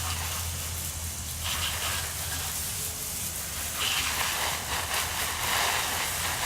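Garden hose spraying water over a minibike, a steady hiss of spray that grows and fades as the stream is moved across it.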